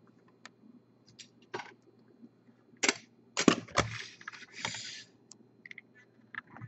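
Hard plastic card cases being handled and set down on a tabletop. There are a few light clicks, then two sharp clacks about three seconds in, followed by about a second of plastic sliding and scraping on the surface.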